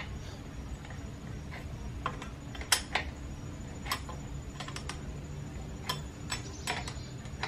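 Irregular sharp metallic clicks of a hand wrench working the top nut of a car strut held in a spring compressor, over a faint low steady hum.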